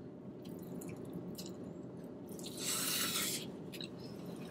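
Quiet eating sounds inside a car: small clicks of plastic forks in takeout containers and chewing over a steady low hum, with a hissy noise lasting about a second, starting about two and a half seconds in.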